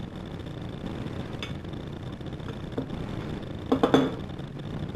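Wooden rolling pin and hands working a round of dough on a hard worktop: a couple of faint knocks, then a cluster of sharper knocks about four seconds in, over a steady background hiss.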